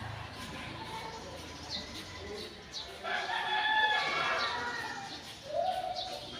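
A rooster crowing about three seconds in, with shorter fowl calls after it and short bird chirps repeating every second or so.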